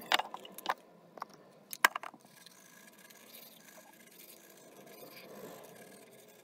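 A few sharp clicks and knocks of things handled at a bathroom sink, then a toothbrush scrubbing teeth softly and steadily.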